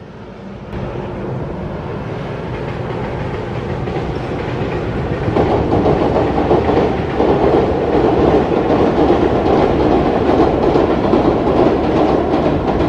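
Freight train passing on electric-locomotive-hauled track: a steady rumble of wheels and wagons that grows louder, stepping up about a second in and again about five seconds in, with the clickety-clack of wheels over rail joints.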